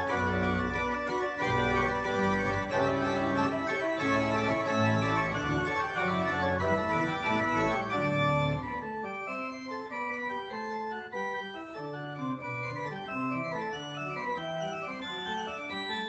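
Two-manual church organ playing sustained chords over a moving bass line. About halfway through the low bass drops out and the music goes on softer, in the upper notes only.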